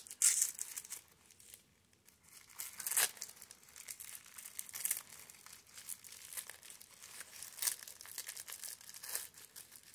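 Thin tissue paper crinkling and rustling as it is pulled open by hand, in irregular bursts with a few sharper crackles, the strongest right at the start and about three seconds in.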